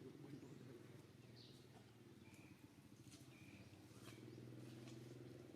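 Near silence: a faint steady low hum, with a few faint short high-pitched chirps near the middle.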